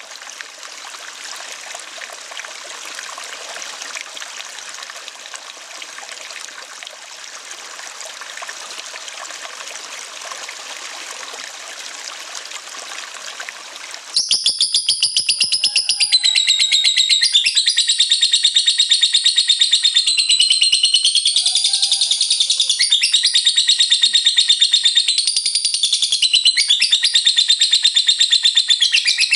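Steady trickle of running water for about the first half, then suddenly a lovebird's long 'ngekek' song begins: a loud, very fast, high-pitched chattering trill that carries on without a break.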